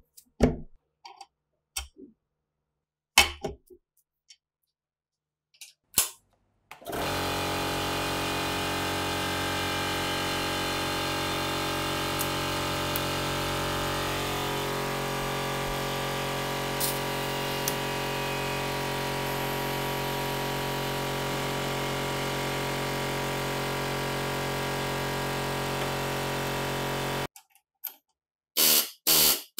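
Light metal clicks and knocks as gun parts are handled, then a steady mechanical hum that runs for about twenty seconds, shifting slightly partway through, and cuts off abruptly. Near the end a pneumatic air hammer starts up, driving a punch into the steel front sight.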